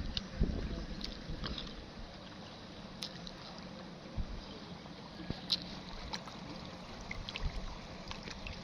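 Steady background noise of wind and river water, with a few scattered short clicks.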